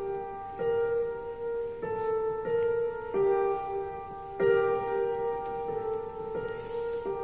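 Digital keyboard played live with a piano sound: a carol in held chords, with new chords struck about every second.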